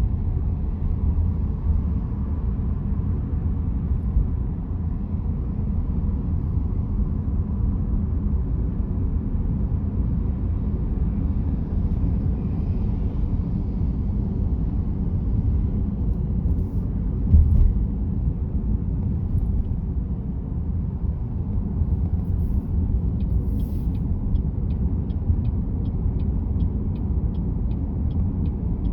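Steady low rumble of a car driving on city roads, road and engine noise heard from the car. There is a single thump about two-thirds of the way through, and near the end a regular light ticking of two to three a second.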